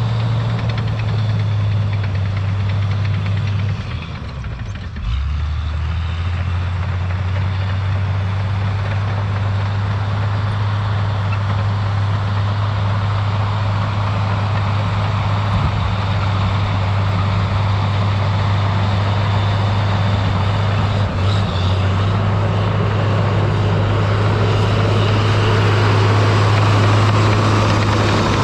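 Diesel engine of a tracked earthmover running steadily. Its note drops briefly about four seconds in, then picks back up.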